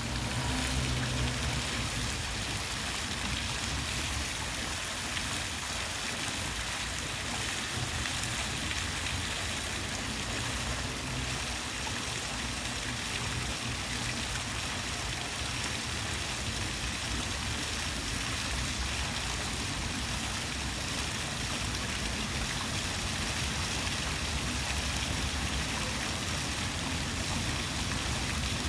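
Steady rushing water noise, even and unbroken, with a low rumble underneath.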